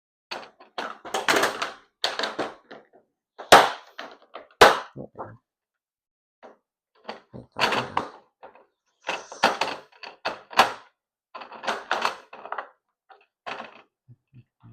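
Packaging being handled while unboxing model trains: irregular rustling and crinkling, broken by a few sharp clicks and knocks, the loudest two about three and a half and four and a half seconds in.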